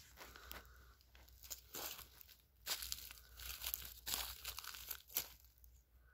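Crunching and crackling of dry straw crop residue underfoot, in a string of uneven steps, loudest in the middle of the stretch.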